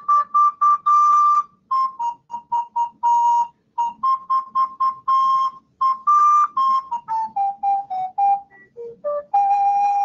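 Alto recorder played solo: a quick melody of many short, separately tongued notes, ending on a long held note near the end.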